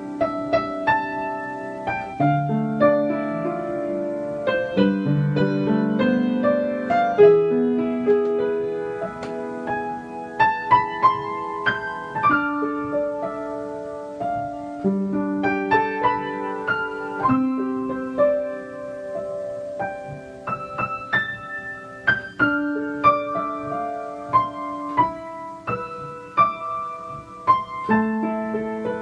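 Background piano music, a calm piece of sustained notes and chords.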